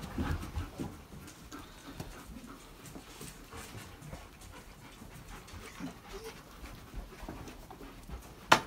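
German Shepherd panting, with small rustles throughout. A single sharp click comes near the end and is the loudest sound.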